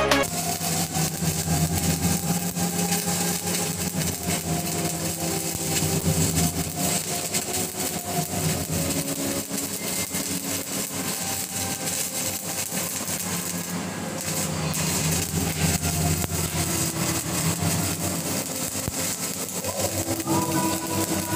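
Stick (SMAW) welding arc burning a 7016 electrode, crackling and sizzling continuously, over a steady low hum.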